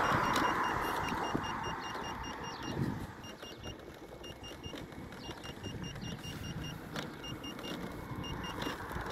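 Electric unicycle ride on a concrete path: wind rush on the microphone that fades over the first few seconds, over a rough rolling rumble from the tyre. A high-pitched beep pulses in quick runs with short gaps throughout.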